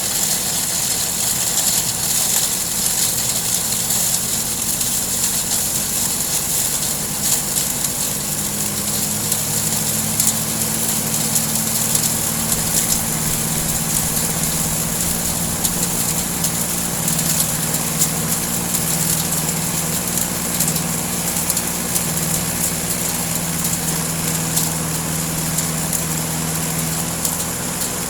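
Four-stroke grass-cutter engine running steadily while it drives a goat-manure grinder, its note climbing slightly about a third of the way in, with a continuous fine ticking and rattling over it.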